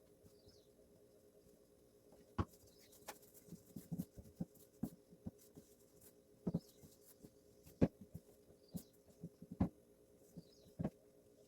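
Scattered light taps and knocks of hand work in a kitchen, irregular and a second or two apart, over a faint steady hum.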